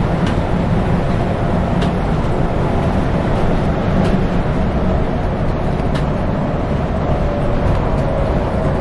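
Scania K410 coach cruising, heard from inside the front of the cabin: steady engine and tyre noise, with a few faint ticks.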